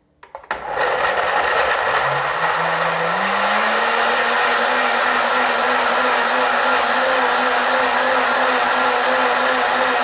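Blender running, blending frozen mango, orange pieces and water into a smoothie. It starts with a few clicks about half a second in; its motor pitch rises over the next couple of seconds, then it runs loud and steady.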